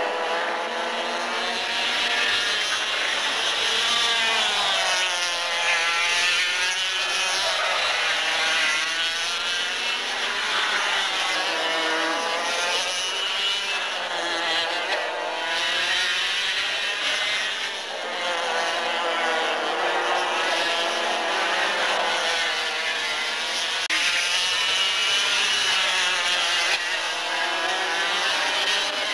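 Several Parilla two-stroke racing kart engines revving, their pitch falling and rising again and again as the karts brake for and power out of corners.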